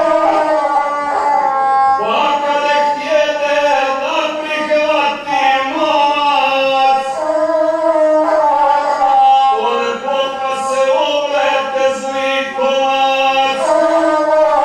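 A man singing epic verse to his own accompaniment on the gusle, a bowed single-string folk fiddle. Voice and gusle step together among a few close notes without a break.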